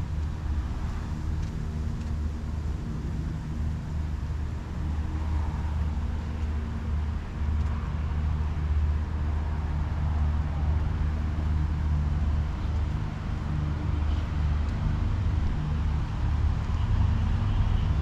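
Outdoor street ambience: a steady low mechanical hum, growing a little louder near the end.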